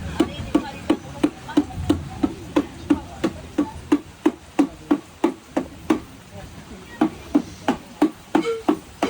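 A drum beaten in a steady rhythm for a traditional dance, about three pitched strokes a second. A held higher tone joins near the end.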